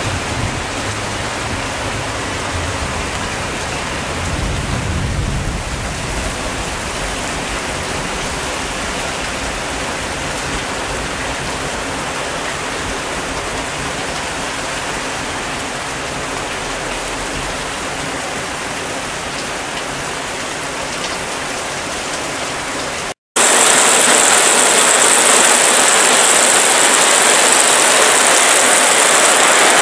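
Steady rain drumming on a polycarbonate roof, heard from underneath the cover. About 23 seconds in, after a brief dropout, it gives way to louder rain with more hiss, falling straight onto polycarbonate roof panels.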